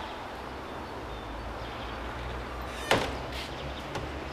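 Steady low rumble of street traffic, with one sharp bang about three seconds in and a faint click a second later.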